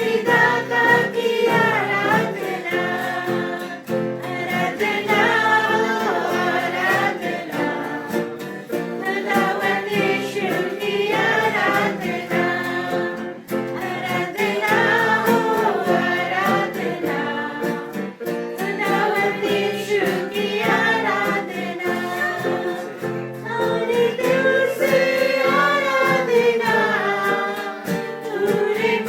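Worship song: a group of voices singing together over instrumental accompaniment.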